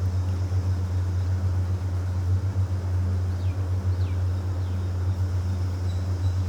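Steady low background hum with no speech, a few faint high chirps about three to four seconds in.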